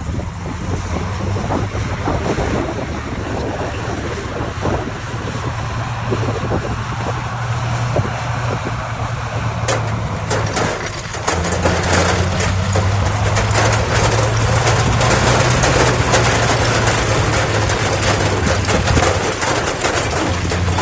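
Diesel engine of heavy earthmoving machinery running steadily. About ten seconds in, a gritty rattling and crackling joins it and the engine grows louder.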